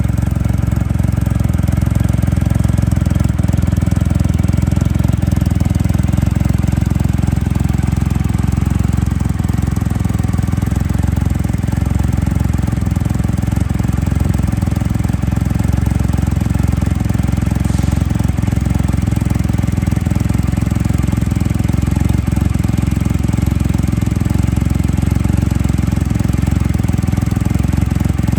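Triumph Rocket III motorcycle's 2.3-litre inline three-cylinder engine idling steadily, a deep even exhaust note with no revving.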